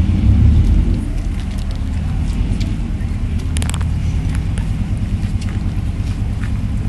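The big diesel engines of USS Silversides, a WWII Gato-class submarine, running just after starting: loudest in the first second, then settling into a steady, evenly pulsing low idle.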